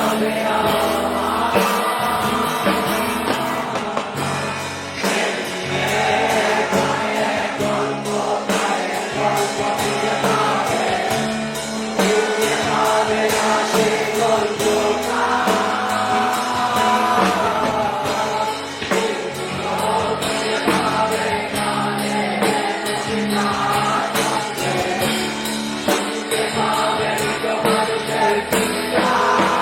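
A Bengali song: sung vocals over instrumental backing with a steady beat.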